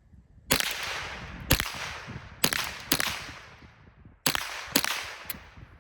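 Ruger 10/22 semi-automatic rifle firing .22 LR: about seven shots at uneven spacing, each followed by a short fading echo.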